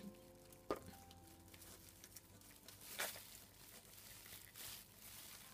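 Near silence: room tone with a few faint clicks from a plastic paint bottle and cups being handled, one at the start, one just under a second in, and a softer one about three seconds in.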